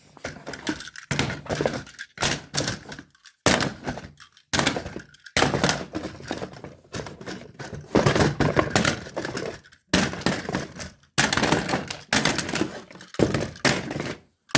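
Mouse traps being handled and counted out of their box: repeated irregular knocks and clatters as they are set down and bump together, in clusters with brief pauses.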